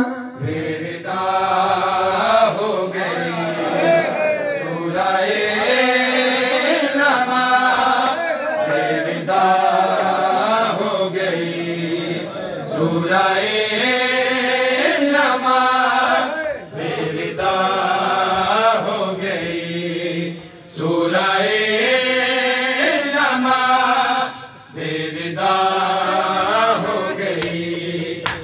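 Male voices chanting a noha, a Shia lament, in repeating sung phrases of a few seconds with brief breaks between them, led on a microphone.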